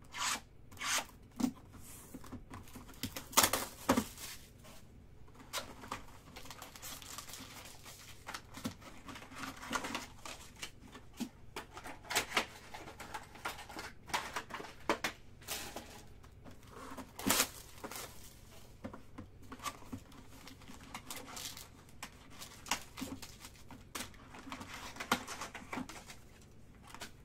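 Panini XR football card box being opened and its foil-wrapped packs handled: tearing and crinkling of wrappers, with scattered taps and clicks of cardboard and cards.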